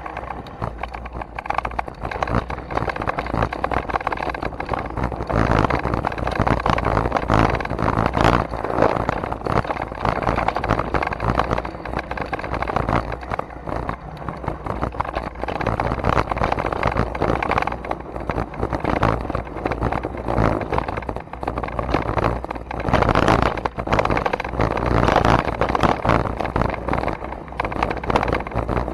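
Wind buffeting the microphone with a low rumble, and constant clattering rattles and knocks from a bike rolling fast over a bumpy dirt trail.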